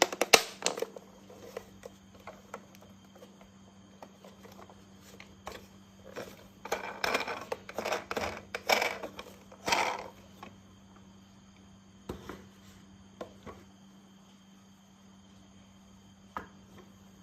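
Hard plastic toy pieces clicking and clattering as they are handled, with bursts of rustling near the start and again in the middle.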